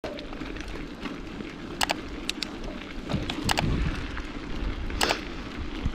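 Mountain bike rolling down a dirt trail: a steady low rumble of tyres on dirt and air rushing past the camera, broken by several sharp clicks and clatters from the bike, the loudest about five seconds in.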